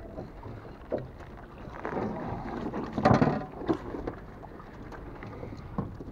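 Water splashing and sloshing in irregular bursts, the loudest about three seconds in.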